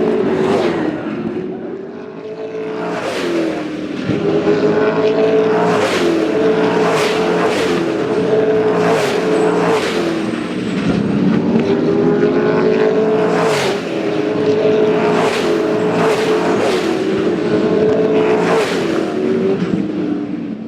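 V8 SuperTourer race car V8 engines running hard on track, their pitch dropping and climbing again and again through the gears. Short sharp cracks repeat every second or two.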